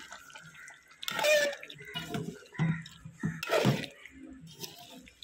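Steel ladle stirring thick chicken curry gravy in an aluminium pot: wet squelching and sloshing in a few separate strokes.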